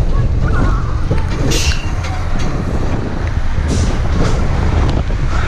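Riding a spinning roller coaster: a steady low rumble of the car on the track under wind buffeting the microphone, with a few short rattles and two faint brief squeals.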